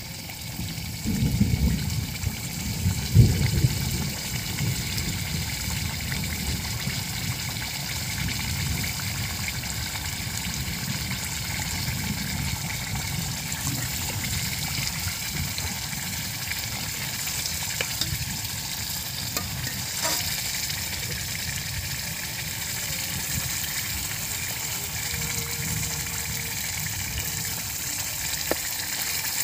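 Chicken pieces frying in oily masala in a steel pot over a wood fire, with a steady sizzle throughout. A steel ladle stirs the pot, and there are a few heavy knocks about one and three seconds in.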